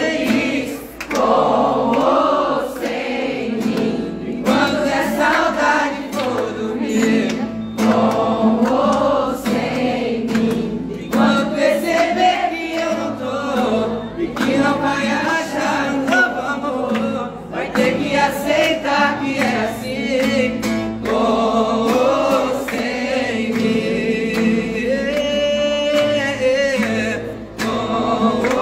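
A group of voices singing a song together to a strummed acoustic guitar.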